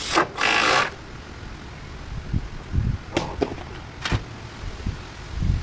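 A brief loud noisy burst of about half a second at the start, then a person climbing down a ladder and moving on wooden deck boards: scattered low thuds of footsteps and a few sharp clicks and knocks about three and four seconds in.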